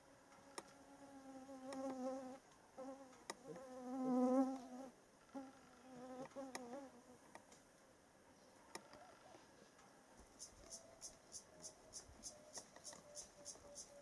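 A flying insect buzzing close by, its hum wavering in pitch and swelling and fading as it moves, loudest about four seconds in. From about ten seconds in, a high-pitched chirp repeats about three to four times a second.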